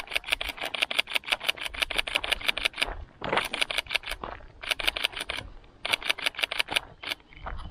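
Sony A7III camera shutter firing in rapid continuous bursts, about ten clicks a second. The first run lasts nearly three seconds, followed by several shorter runs with brief breaks.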